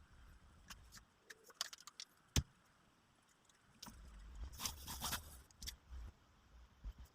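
Scattered metallic clicks and clinks of tools or parts being handled, with one sharp knock about two and a half seconds in and a brief burst of rattling clinks and dull bumps around the five-second mark.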